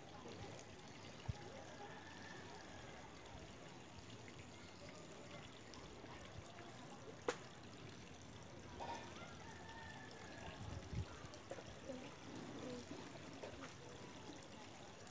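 Faint lakeside ambience: a soft, steady trickle of water, with a sharp click about a second in and a louder one about seven seconds in.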